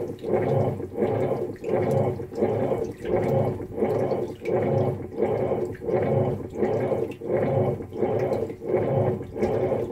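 Whirlpool Cabrio top-load washer agitating in a deep-water wash, its wash plate driving the laundry back and forth. Water and clothes slosh and churn in an even rhythm of a little under two strokes a second.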